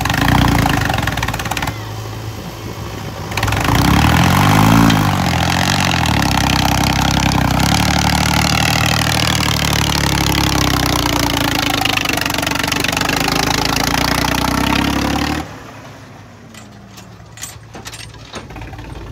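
Swaraj tractor's diesel engine labouring as it pulls a trolley heaped with soil, revving up and back down about four seconds in, then running steadily under load. Near the end the sound drops suddenly to a much quieter engine running, with a few clicks.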